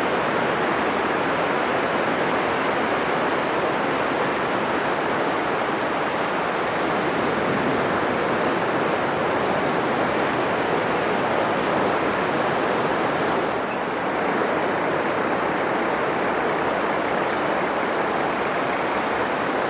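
Atlantic surf breaking on a wide sandy beach: a steady wash of foaming water with little rise and fall, dipping slightly about two-thirds of the way through.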